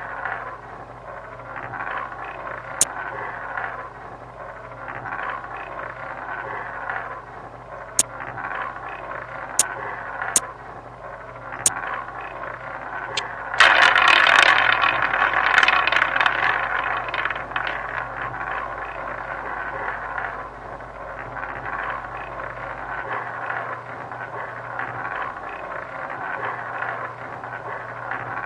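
Online roulette game sound effects: a few sharp clicks as chips are laid on the table, then about halfway through the spin sound starts suddenly and loud, the ball rattling round the wheel and slowly dying away over several seconds, over a steady background noise.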